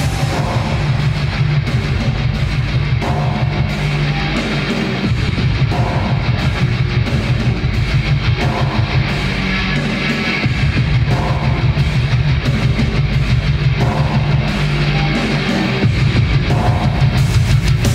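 Instrumental heavy rock music: electric guitar riffing over drums, with a fast, steady pulse in the low end.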